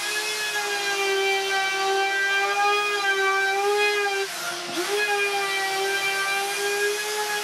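Handheld electric router with a bearing-guided roundover bit running and cutting a rounded edge along a wooden tabletop, a steady high whine. About four and a half seconds in its pitch sags briefly and climbs back up.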